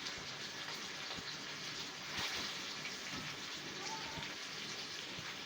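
Floured beef roast sizzling steadily in hot grease in a skillet on medium-high heat, with small scattered crackles and pops.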